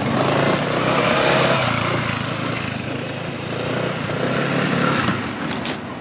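Motor scooter engine running steadily as the scooter is ridden, with a few sharp clicks near the end.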